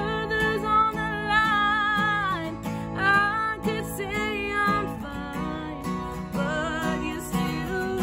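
A woman singing a power-pop song while strumming a black Takamine steel-string acoustic guitar.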